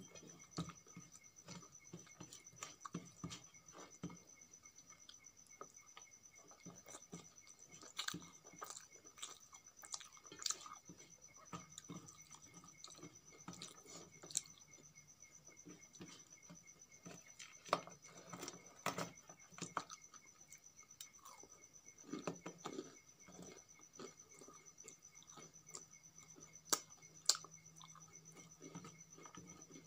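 Close-miked hand-eating sounds: fingers squishing and mixing rice with chutney on a steel plate, with scattered sharp clicks and taps of fingertips on the metal, and chewing. A faint steady high-pitched whine runs underneath.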